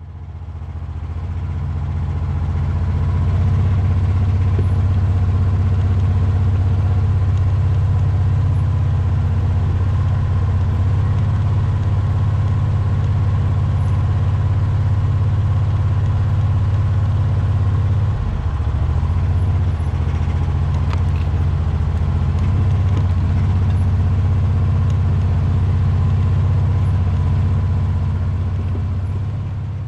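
A vehicle engine running steadily with a low, even rumble. It fades in over the first few seconds, dips briefly about two-thirds of the way through, and fades out at the end.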